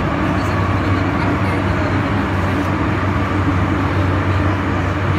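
Steady running noise inside a Hong Kong MTR metro carriage as the train travels: an even rumble and hiss with a low steady hum underneath.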